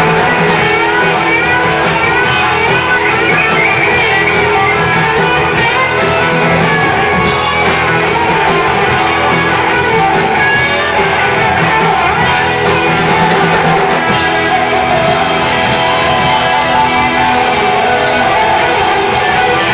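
Hard rock band playing live and loud: distorted electric guitars through Marshall amplifiers, bass and a full drum kit, driving on without a break.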